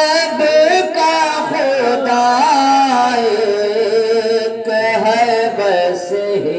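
A man's voice singing a naat unaccompanied, drawn out into long held notes with a quiver and slow glides in pitch.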